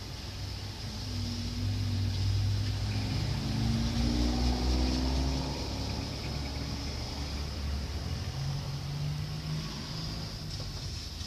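A young child snoring in a car, over the steady rumble of engine and road noise. The snoring is loudest from about one to five seconds in and comes again near the end.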